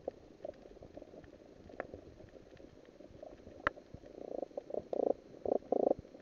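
Muffled underwater sound heard through a camera's housing: bursts of bubbling and gurgling that come thicker in the second half, with scattered sharp clicks.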